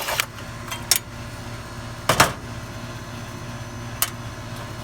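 A few sharp clicks and metal knocks, the loudest about two seconds in, as the screw is taken out and the old run capacitor is pulled from the air conditioner's outdoor unit. Under them runs a steady low hum, typical of a working air-conditioner condenser unit.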